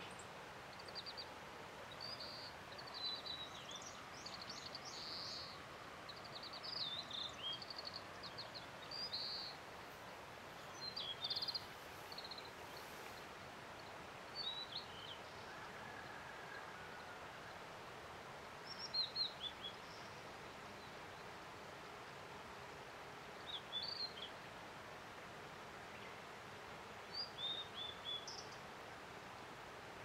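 Blue-and-white flycatcher singing: short, high whistled phrases, packed close together for the first ten seconds or so and then coming every few seconds, over a steady background hiss.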